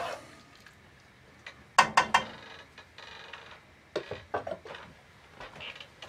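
A metal spoon clinking against an enamel cooking pot: a few sharp knocks with a short ring about two seconds in, then lighter clatter around four seconds as the spoon is set down in the sink.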